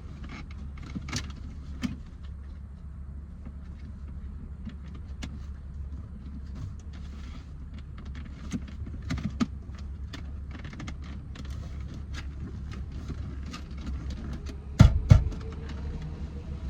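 Scattered small clicks and taps of parts being handled, over a steady low hum, with two loud knocks about fifteen seconds in.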